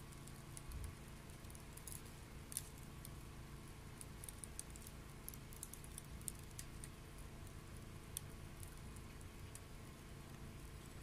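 Wet wood burning in a homemade secondary-combustion stove: faint irregular crackles and pops, a few sharper than the rest, over a low steady background.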